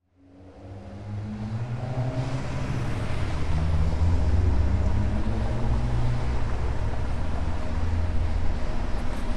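Car engine running as the car approaches, fading in from silence over the first second or so, then a steady low engine sound with a drifting hum.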